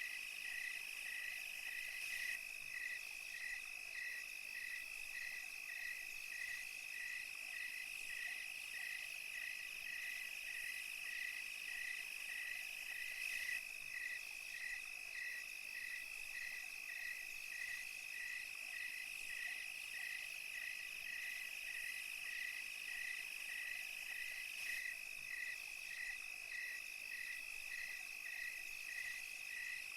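Night chorus of crickets and other insects: a steady high trill, with a regular chirp repeating under it a little less than twice a second.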